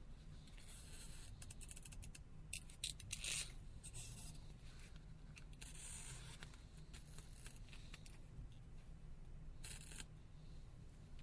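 Faint scraping and peeling noises in several short spells as the adhesive tabs under a Lumia 1320 phone's battery are pulled out, over a low steady hum.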